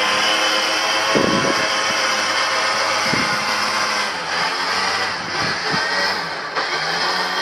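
Suzuki Jimny engine running steadily under load as the 4x4 pulls on a land anchor line, with a few light knocks.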